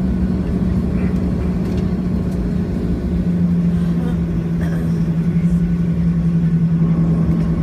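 Steady hum and low rumble inside a Boeing 737-700 cabin on the ground, from its engines and air systems; the hum steps slightly down in pitch about three seconds in.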